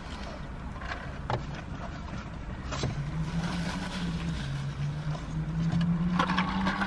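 Eating sounds: chewing and a crumpled paper napkin rustling, with a few short clicks of handled paper. A low steady hum comes in about three seconds in and grows slightly louder.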